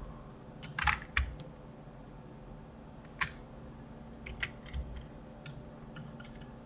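Scattered clicks of a computer keyboard and mouse: a quick cluster about a second in, then a few single clicks spaced out, over a faint steady hum.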